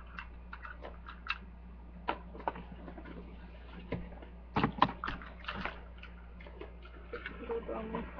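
Sewing supplies being packed by hand into a container: scattered clicks, knocks and rustles of small objects, with a run of louder knocks about halfway through.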